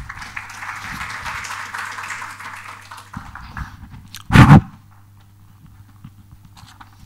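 Handling noise on a live microphone: a rustle lasting about three seconds, then one loud thump about four and a half seconds in, then quiet hum.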